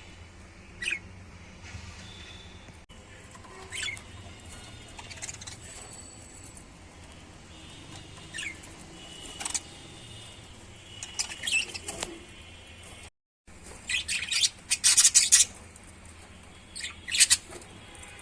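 Pet lovebirds giving short, sharp, shrill chirps, single calls every second or two, then a louder, denser flurry near the end. The sound cuts out completely for a moment just before the flurry.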